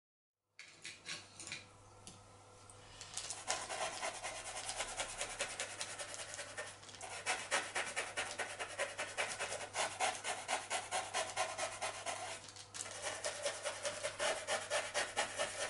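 A small brush rubbing charcoal on drawing paper in quick back-and-forth strokes, several a second, blending the dark tone, with two short breaks.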